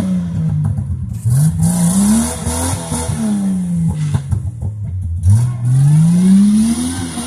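Jeep Wrangler engine revving hard, rising and falling in pitch several times, rising about a second in and again about five seconds in, as the tyres spin for traction in slick, wet clay mud.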